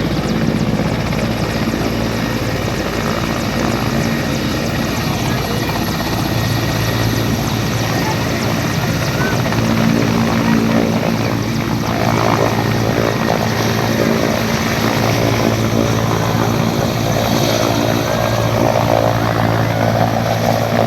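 Helicopter close by, its rotor and engine making a loud, steady sound.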